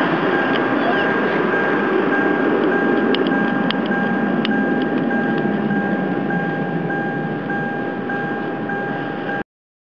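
Twin-engine jet airliner's engines on landing approach: a steady rushing noise with a constant whine, easing slightly in the last seconds before cutting off suddenly near the end.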